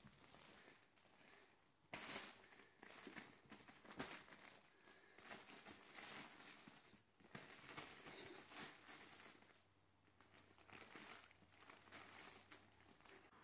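Faint, irregular rustling and crinkling of a fabric cat play tunnel as two kittens scramble in and around it, with soft scuffs on the carpet and a sharper knock about four seconds in.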